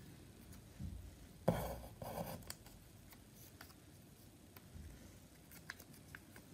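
Cut-out paper shapes being handled on a table: a sharp paper snip or crinkle about a second and a half in, and a few light clicks of paper being set down near the end.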